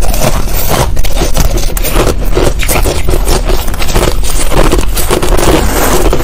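Finely crushed ice being chewed close to a clip-on microphone: a dense, continuous run of rapid crunches.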